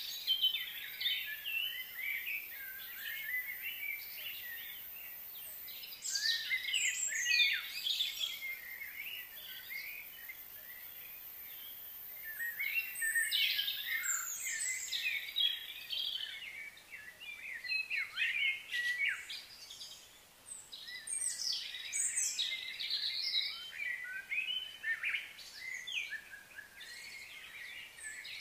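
Birds chirping and calling in irregular bursts of short, quick notes, with a thin, steady, very high tone underneath that stops about halfway through.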